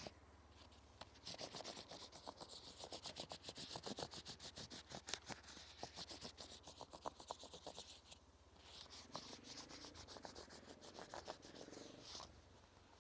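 Paper being rubbed hard against rough tree bark with a kitchen pasta tool: quick, even scraping strokes, several a second. It runs for about seven seconds, pauses briefly, then goes on for about three more.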